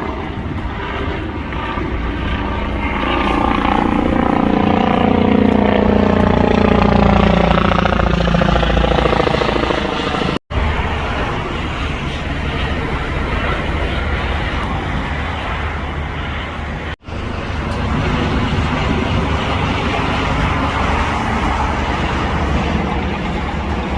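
Rescue helicopter passing overhead, its engine and rotor pitch falling steadily as it goes by. After two sudden cuts, a steady rushing noise continues.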